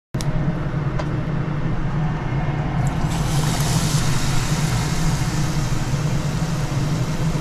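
Batter-coated shrimp going into hot oil about three seconds in, setting off a hissing sizzle as the shrimp tempura fries, over a steady low mechanical hum.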